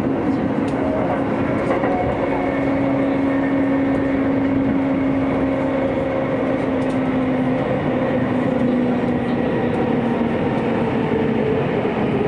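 Hokuso Railway / Chiba New Town Railway 9000 series electric train running through a tunnel, heard from inside the car: a steady roar of wheels on rail with a strong whine that drops slightly in pitch about eight seconds in.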